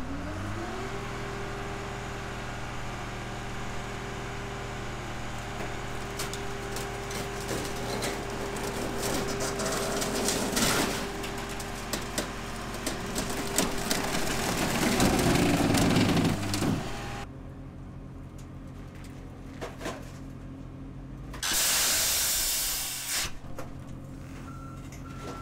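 Hydraulic car crusher working: its engine and pump spool up and hold a steady pitched drone while metal cracks and crunches, loudest near the middle, then the drone drops away. A loud hiss of about two seconds follows, and a few short high beeps repeat near the end.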